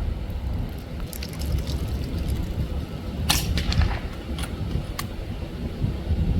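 A single shot from a .22 calibre Brocock Atomic XR PCP air rifle, a sharp crack about three seconds in, with a few lighter clicks before and after it. A steady low rumble runs underneath.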